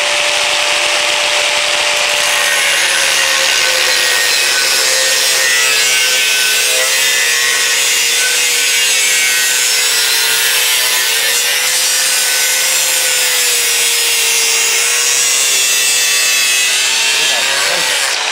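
Angle grinder cutting a steel bar: a steady motor whine over the hiss of the cut. About three seconds in, the pitch sags as the disc bites into the steel and then wavers under load. Near the end the whine starts to wind down.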